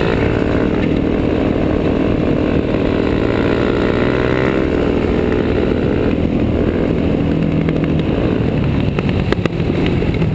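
Dirt bike engines running at a steady cruising speed, their pitch wavering slightly, over a heavy rush of wind and road rumble on the camera. A few sharp clicks near the end.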